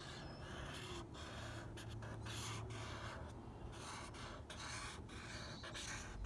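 Thick Sharpie felt-tip marker scratching across paper in a run of quick, short back-and-forth strokes as zigzag grass is drawn. The marker is not drawing well.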